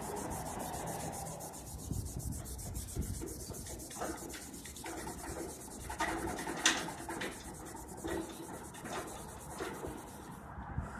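A rag rubbing metal polish onto a chrome-plated steel handle in quick, even back-and-forth strokes, with a few light knocks.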